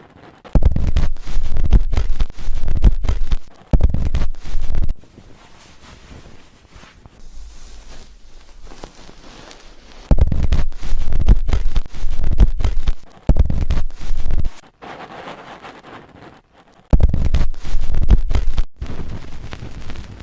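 Close, scratchy rubbing of hands scrubbing a head of hair and scalp during a hair wash, coming in five loud bursts of one to three seconds with quieter gaps between.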